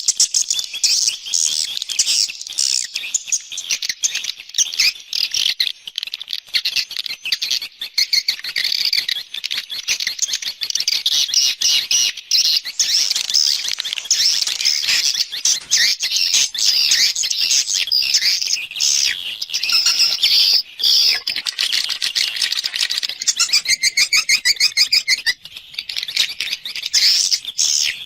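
Swiftlet calls from a swiftlet-house external lure recording: dense, continuous chirping and twittering, with a fast, even rattling trill about four-fifths of the way through.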